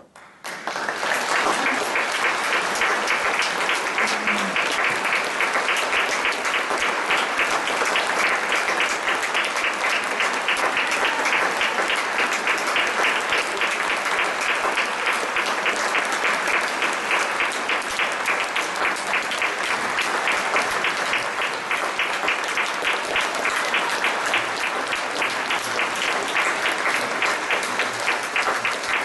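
Audience applauding, breaking out within the first second and then continuing steadily.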